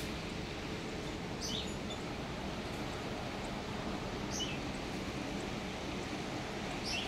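A small bird calling three times, about three seconds apart: each call a short high chirp dropping to a lower note. Steady outdoor background noise runs beneath it.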